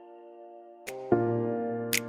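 Background music: soft sustained chords, with a new chord coming in about a second in.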